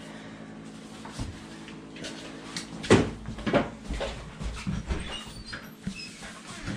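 A dog barking a few times, starting about three seconds in, the first bark the loudest.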